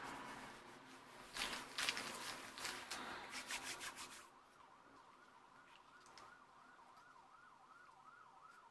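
Paper rustling and crinkling as hands smooth glued scrapbook paper onto a postal envelope, for about three seconds. Then a faint warbling siren, its pitch rising and falling about three times a second.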